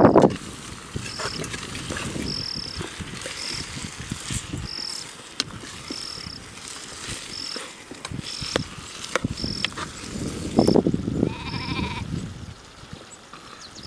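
An insect chirping in short, high-pitched pulses about once a second, with a brief animal call near the end and scattered low knocks and rustling.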